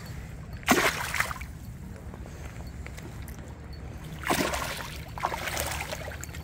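Water splashing in three short bursts: about a second in, at about four seconds and near five and a half seconds.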